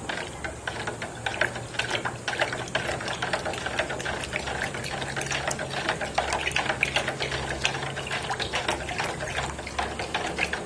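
A thin stick stirring green water (chlorella culture) in a plastic bottle, clicking and rattling rapidly against the plastic walls with a little water movement, mixing in freshly added fertilizer.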